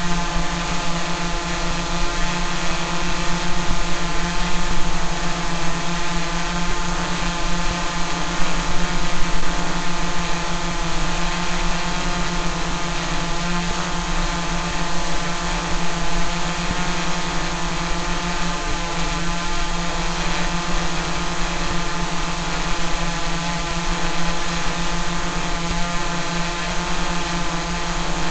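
Small multirotor drone in flight: its propellers give a steady hum, a strong low tone with a stack of higher tones over a hiss.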